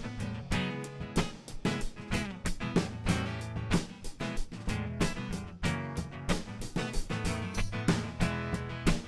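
Instrumental break in a live acoustic duo's song: strummed guitar chords over steady percussion, without vocals.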